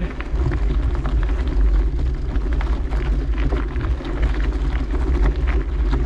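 Steady low rumble with many small clicks and rattles, the kind of noise heard while moving along.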